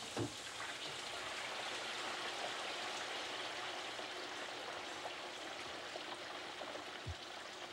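French fries frying in a commercial deep fryer: the hot oil sizzles and bubbles in a steady hiss once the wire basket goes in. There is a dull knock at the start and another near the end.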